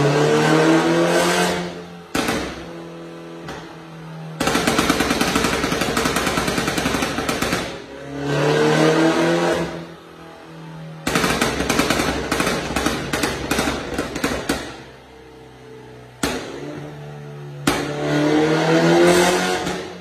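BMW G30 520i's turbocharged four-cylinder engine breathing through an Armytrix cat-back exhaust and downpipe, revved up and let fall three times, with two long runs of rapid pops and crackles from the exhaust in between.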